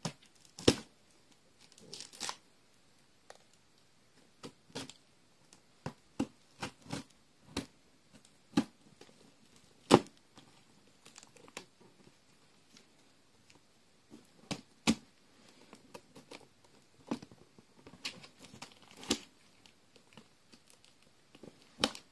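Cardboard shipping box being opened by hand: tape and cardboard tearing in short, irregular rips and snaps, with some crinkling between them. The sharpest rip comes about halfway through.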